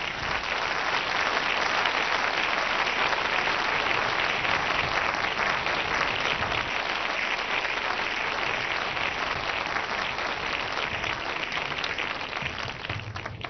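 Theatre audience applauding, swelling over the first couple of seconds and then holding steady.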